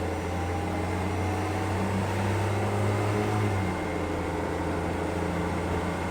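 Suzuki JB23 Jimny with automatic transmission, running: a steady low hum with a fainter whine layered above it, easing slightly about three and a half seconds in.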